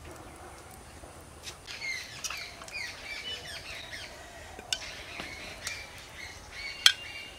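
Birds chirping and squawking, a busy run of short calls through the first half, with a few sharp clinks of a serving spoon against a steel bowl, the loudest near the end.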